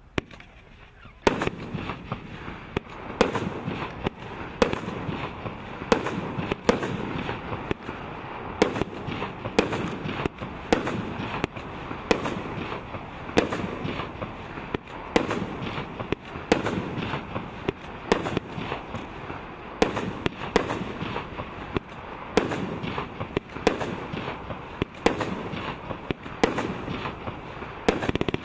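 A 25-shot golden strobe fireworks cake firing shot after shot, roughly one a second. Each shot is a sharp bang, with continuous crackle and hiss between them.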